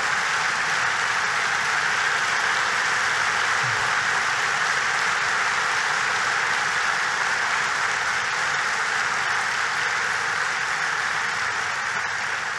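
Large audience applauding, a dense, even clapping that holds steady and begins to die away near the end.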